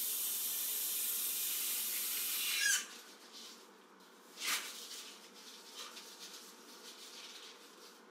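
Water running from a bathroom faucet into a wash basin, shut off abruptly about three seconds in. A brief knock follows a couple of seconds later, then a few faint handling sounds.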